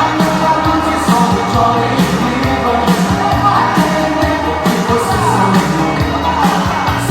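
Upbeat pop dance music with a steady beat and a singing voice, played loud for a group fitness dance routine.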